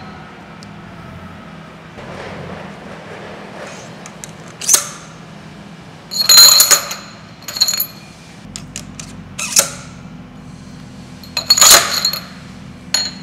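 Steel angular contact bearings clinking and ringing as they are slid down a steel spindle and seated on one another: about seven sharp metallic knocks, the loudest about six seconds in and again near the end, over a steady low shop hum.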